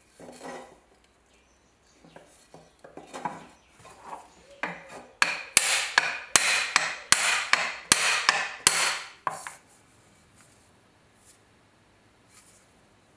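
Small hammer tapping on the end of a wooden dowel pushed into a rusted steel bayonet scabbard: a few light knocks, then a steady run of about ten sharp blows at two to three a second that stops suddenly.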